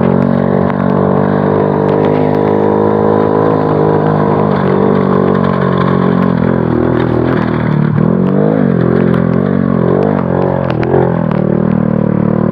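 Motorcycle engine running under load as it climbs a steep dirt track, heard from the rider's seat. Its pitch holds steady at first, then rises and falls several times in the second half as the bike jolts over rough, rocky ground.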